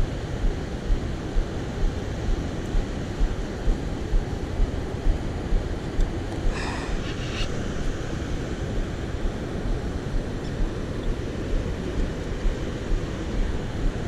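Steady rush of fast, turbulent river water with a low rumble on the microphone, and a brief high-pitched sound about six and a half seconds in.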